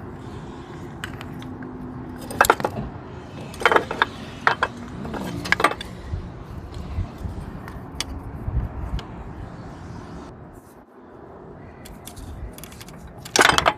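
Hand tools and spring hose clamps clinking and scraping against metal as the clamps are pried off and the hoses worked loose from a car engine's oil cooler. Irregular sharp clinks and knocks, a few louder ones spaced across the stretch, the loudest near the end.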